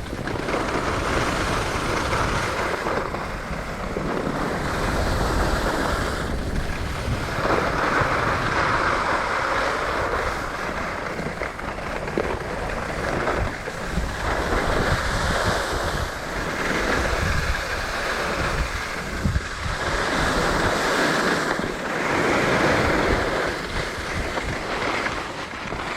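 Skis scraping and hissing over packed snow through a series of turns, swelling every few seconds, with steady wind rushing on the microphone.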